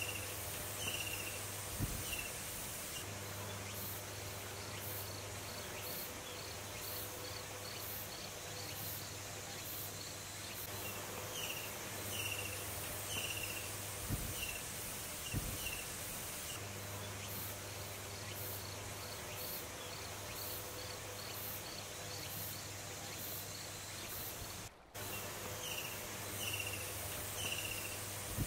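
Insects chirring in a steady chorus with a fast, even pulsing, joined every several seconds by a short run of high chirps, over a faint steady low hum.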